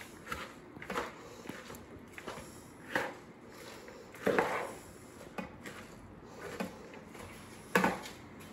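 Serving spoon tossing shredded cabbage, carrots and onion in a large plastic Tupperware bowl: irregular scrapes, rustles and knocks of the spoon against the bowl, loudest a little past the middle and near the end.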